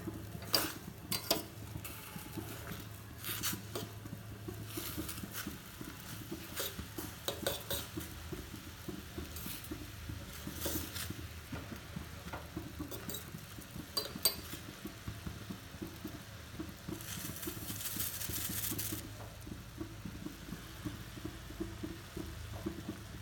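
Metal pot and utensils knocking and clinking at irregular moments as instant noodles are stirred in a pot to boil, over a low steady hum. A brief hiss lasting about two seconds comes about three quarters of the way through.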